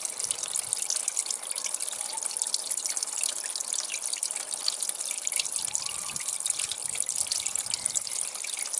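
Petrol trickling out of a Yamaha Diversion's fuel system as a steady, splashy trickle. It is being drained off because the mechanic suspects water in the fuel, and it comes out very cloudy.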